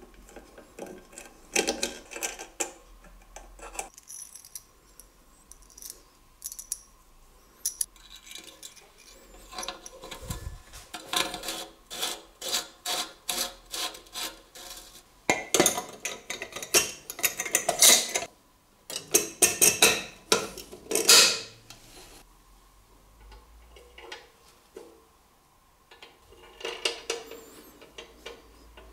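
Metal parts of a restored Chalwyn Far East kerosene lantern being handled and fitted by hand: small clicks, taps and metal-on-metal scraping. The sounds come in scattered clusters, with a dense, louder run of quick clicks and scraping through the middle as a cap is screwed onto the fuel tank.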